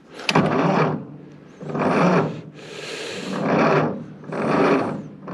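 1953 Ford Golden Jubilee tractor's four-cylinder engine being cranked by its starter, turning over slowly in about five laboured, rasping heaves roughly a second apart without firing: the battery is too weak to spin it fast enough to start.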